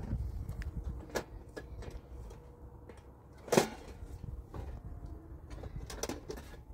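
Scattered knocks and clicks of handling or household clatter, with one much louder knock about halfway through, over a low rumble.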